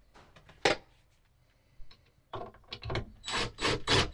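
A sharp click about a second in, then a cordless drill driving a screw into the bed frame's timber rail in short bursts that grow louder near the end.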